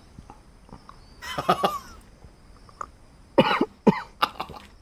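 A man coughing hard while eating king chillies (ghost peppers), the burn of the chilli setting him off. One coughing burst comes about a second in, then a run of four or five short, sharp coughs near the end.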